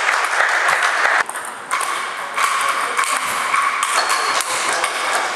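Ping-pong ball clicking sharply off sandpaper bats and the table in a rally, with more ball clicks from other tables, over a steady murmur of the hall.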